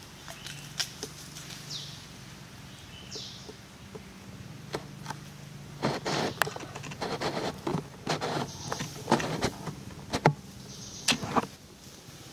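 Outdoor ambience with a steady low hum and a few short, high chirps like birds. From about halfway through, a few seconds of sharp clicking and rustling noises come close to the microphone, the loudest sounds here, then die away near the end.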